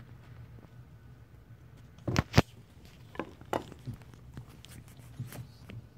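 Kittens scuffling on carpeted stairs: scattered soft paw thumps and patters, with the loudest two knocks close together about two seconds in.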